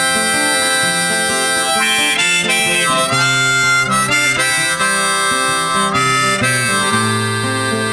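Background music: a harmonica solo over guitar in an instrumental break of a song.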